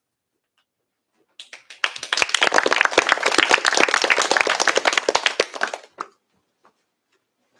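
Audience applauding: many hands clapping, starting about a second and a half in and dying away near the end.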